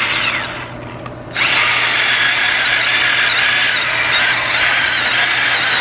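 Milwaukee Fuel battery-powered mini chainsaw running with its chain cutting into a thick log. Its pitch falls and it eases off about a second in, then it spins back up and runs steadily through the cut.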